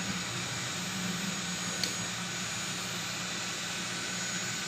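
Robot vacuum cleaner running steadily under a low chest of drawers, a low motor hum with a hiss over it; it keeps turning in the tight space without being stuck. A faint click about two seconds in.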